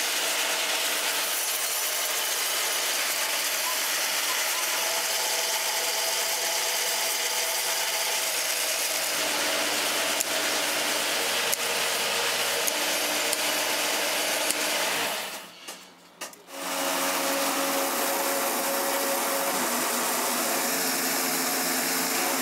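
Machinery for stripping steel wire out of old tyres running with a steady mechanical noise and a few held tones. It drops away briefly about fifteen seconds in, then resumes.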